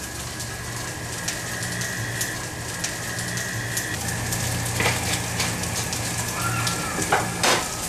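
Potato cubes sizzling and crackling in hot oil in a frying pan, over a low steady hum. A few sharper knocks come about five and seven seconds in.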